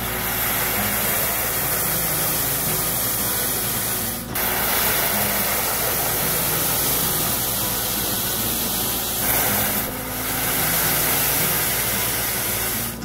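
Snow-clearing machinery throwing snow: a loud, steady rushing hiss that dips briefly about four seconds in and again about ten seconds in, with background music beneath.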